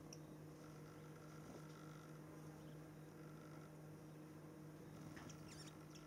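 Near silence with a faint steady hum, broken by a few faint, high, short chirps from small songbirds, one right at the start and a few more near the end.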